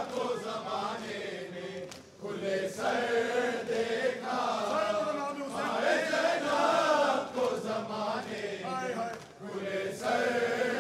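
Group of men chanting a noha, a Shia mourning lament, together without instruments, in long drawn-out phrases with short breaks between them.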